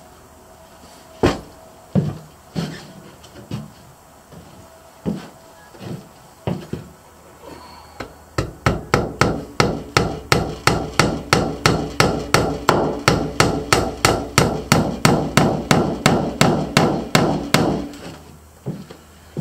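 Hammer driving nails into wood. A few scattered blows come first, then about eight seconds in a fast, steady run of about four blows a second that stops shortly before the end.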